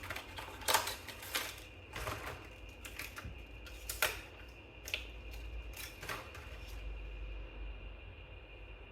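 Sharp plastic-and-metal clicks and light scraping as laptop DDR5 SO-DIMM memory sticks are handled, pulled and pressed into their slot, about eight clicks over six seconds, then quiet handling.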